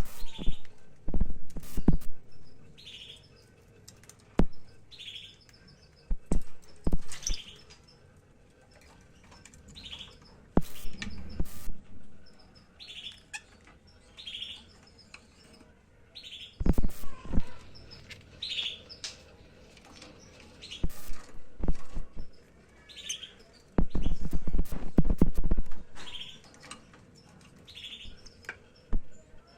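Lovebirds chirping: short, high calls repeated every second or two, among sharp clicks and knocks. A few seconds before the end comes a longer, louder burst of knocking and rustling.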